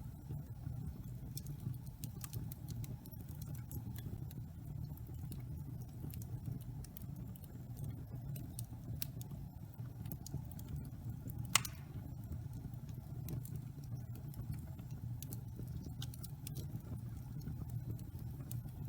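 Wood fire burning in a fireplace: a steady low roar with frequent small crackles, and one louder pop about eleven and a half seconds in.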